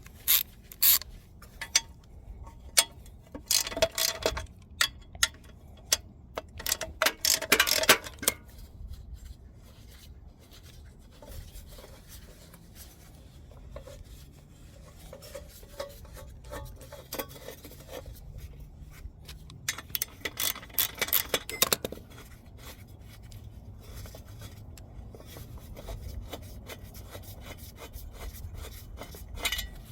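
Ratchet wrench with a 12 mm socket clicking in quick runs, with metal tools clinking, as heat shield bolts are worked loose. The clicking is busiest over the first eight seconds and again about twenty seconds in, and quieter in between.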